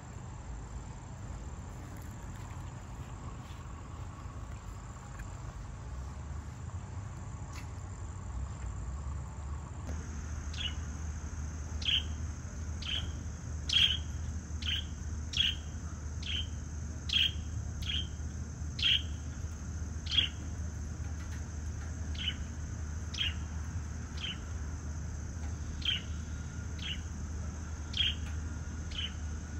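A steady high-pitched insect drone, like crickets or cicadas. About ten seconds in, pet budgerigars in an outdoor cage start giving short chirps, roughly one a second, over a low hum.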